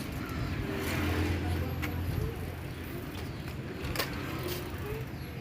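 Low rumble of a motor vehicle, strongest from about one to two seconds in, with a few sharp clicks.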